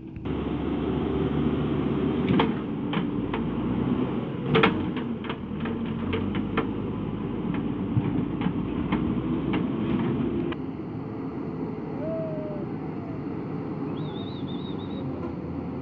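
JCB backhoe loader's diesel engine running, with a string of sharp clanks and knocks in the first half as its front bucket scrapes through stones and mud. After about ten seconds the knocks stop and the engine note goes on steadier and a little quieter.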